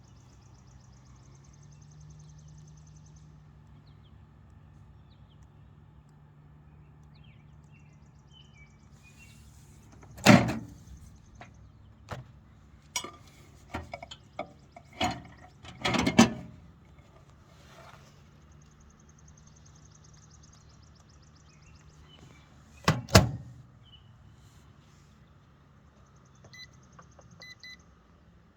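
Microwave oven running with a steady low hum while a headlamp heats inside it, broken by loud sharp cracks and pops about ten seconds in, again around fifteen to sixteen seconds, and once more around twenty-three seconds. Short spells of high buzzing come and go between the pops, and a few faint short tones sound near the end.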